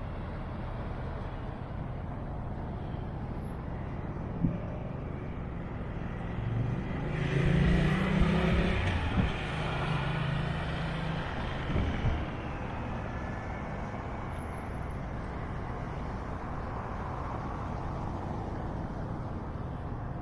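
Steady road-traffic hum, with one vehicle passing close and loud about seven to eleven seconds in, its engine tone rising and then fading. A few short knocks come through here and there.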